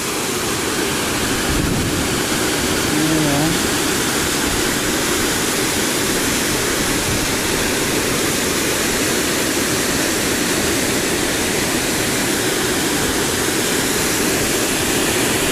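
Waterfall rushing over a rocky cascade: a loud, steady roar of falling water that cuts off suddenly at the very end.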